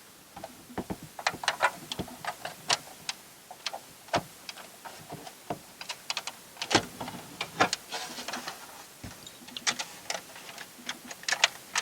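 Irregular small clicks and taps of plastic parts being handled as an LED bulb is refitted into a car's interior light housing.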